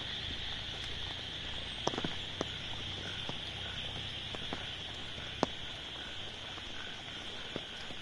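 Rain falling on an umbrella, a steady patter with a few louder drops tapping sharply on it, over a constant high-pitched chorus of calling animals.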